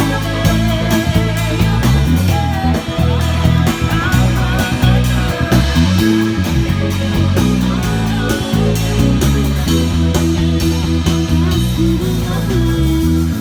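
Rock music with electric guitar and a steady bass line over a regular beat.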